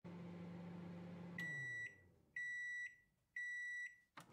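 Microwave oven running with a low hum that winds down and drops in pitch as it stops. Then come three evenly spaced beeps of about half a second each, signalling that the cooking time is up, and a sharp click near the end.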